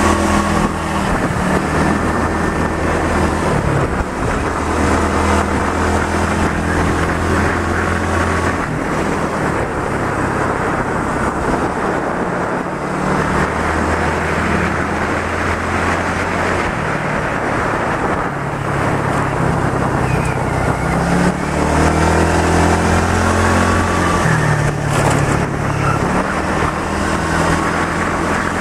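Motorbike engine running under the rider, its pitch holding steady for stretches and then shifting with throttle and gear changes, rising about two-thirds of the way through, with wind and road noise rushing past.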